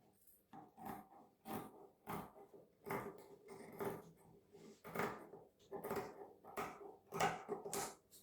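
Irregular series of short knocks and scrapes, roughly two a second, from household objects being handled, over a faint steady hum.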